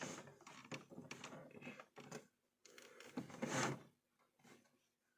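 Faint handling noises from a printer power cable being fitted: scattered light clicks and rustles of plastic, then a louder bump or scrape about three and a half seconds in.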